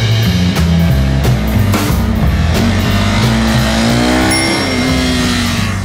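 Background music with a bass line and drum beat, under a Honda CB300R's single-cylinder engine working through a cone slalom. Its revs rise and fall back about halfway through.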